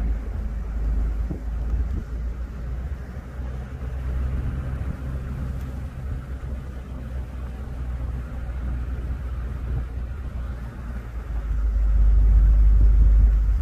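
Low, steady rumble of a car driving slowly along a residential street: engine and tyre noise, swelling louder near the end.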